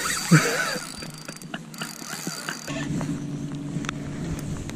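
A boat motor starts a steady low hum a little past halfway, over a quiet hiss. There is a brief voice sound right at the start.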